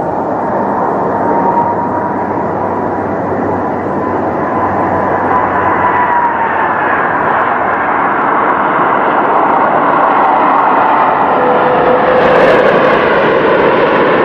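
Airbus A330 airliner's jet engines on landing: a loud steady rush with a whine that slides down in pitch partway through, growing a little louder toward the end as the jet rolls along the runway.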